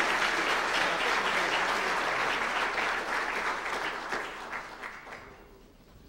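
Audience applauding, the clapping thinning out after about three seconds and dying away about five and a half seconds in.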